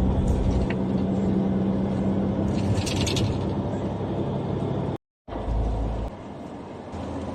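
A motor vehicle's engine running with a steady low hum, over a constant rushing noise. The sound cuts out abruptly about five seconds in and comes back quieter, with a low rumble.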